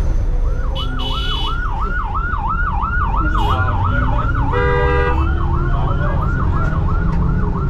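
An emergency-vehicle siren in a fast yelp, sweeping down and up about three times a second, over the steady low rumble of the bus and traffic. A vehicle horn honks briefly about five seconds in.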